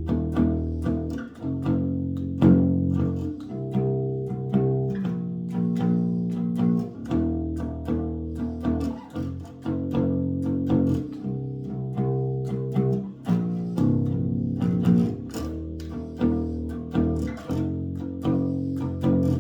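Bass guitar played freestyle: a continuous run of plucked notes and chords, several a second, each note ringing on and changing pitch, making metallic, strange-sounding noises rather than a song.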